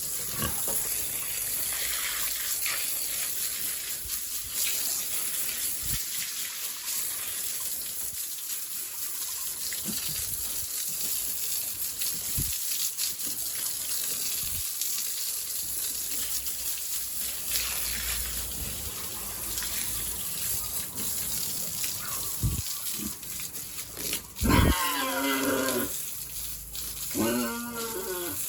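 Water spraying steadily from a hose, with occasional knocks. Near the end come two loud pitched animal calls.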